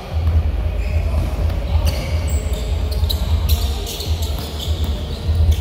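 Basketball game on a hardwood gym floor: the ball bouncing as it is dribbled, with short high sneaker squeaks on the floor.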